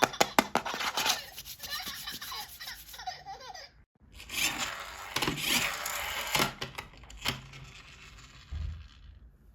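Plastic toys and packaging being handled: a quick run of clicks, then rubbing and rustling. The sound breaks off suddenly just before four seconds, then picks up again before fading near the end.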